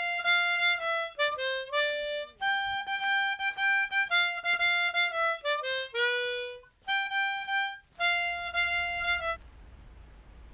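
Harmonica playing a short tune of held notes, with a few notes bent downward, stopping about nine seconds in; after that only a faint low rumble.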